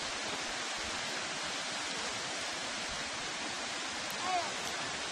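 Steady rush of flowing river water, an even hiss-like noise, with a short faint chirp-like call about four seconds in.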